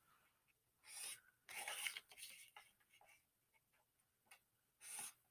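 Faint strokes of a marker drawing straight lines on paper along a straightedge: a few short strokes, about a second in, around two seconds in, and again near the end.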